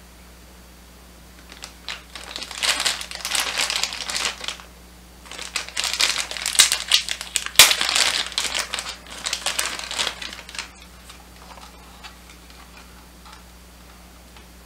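Clear plastic bag crinkling as hands pull it off a toy, in two long bouts with a short pause between, loudest about midway. After that only faint handling sounds.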